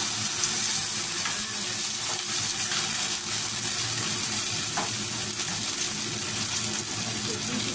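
Canned sardines in tomato sauce sizzling in hot oil in a wok with sautéed garlic and onions, a steady loud hiss, while a spatula stirs through them with faint scrapes.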